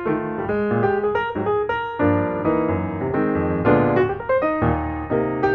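Background piano music: a melody played over chords.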